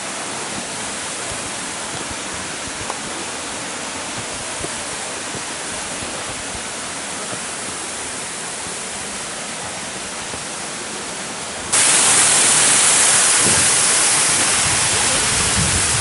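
Steady rush of falling water from a waterfall and rocky mountain stream; about twelve seconds in it abruptly becomes louder and hissier.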